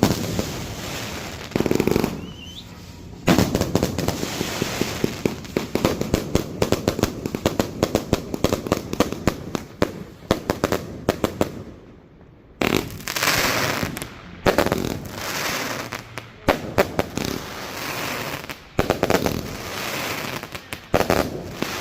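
A 341-shot firework cake firing: rapid volleys of launch thumps and crackling bursts, dense and continuous, with short lulls about two seconds in and around the middle before the firing picks up again.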